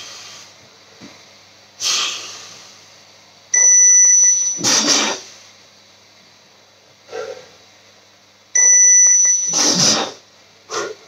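An electronic beeper sounds twice, each a steady high beep of about a second, and each is answered within a second by punches landing on a heavy bag. Single bag hits come in between.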